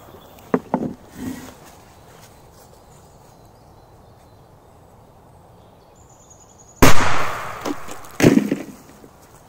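A firecracker explodes inside a metal canister with a single loud bang about seven seconds in, then a second loud crash about a second and a half later. A few small clicks come near the start.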